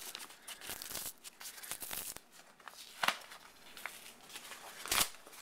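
Rustling and crinkling of a manila paper envelope being opened and handled, with a sharp click about three seconds in and a louder one near the end.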